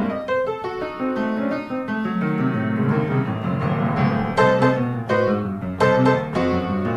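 Background piano music with quick, repeated struck notes.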